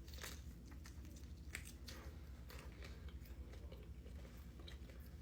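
A person biting into food and chewing close to the microphone, with faint irregular mouth clicks.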